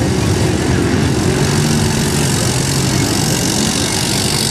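ATV engine running hard as the quad spins doughnuts in deep mud, its note rising and falling as the rider works the throttle.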